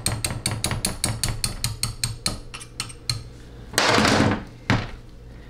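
A quick run of light metal taps from a small hammer on a punch at a transmission valve body, which stops a little past two seconds in. Near four seconds comes a brief, louder metallic clatter.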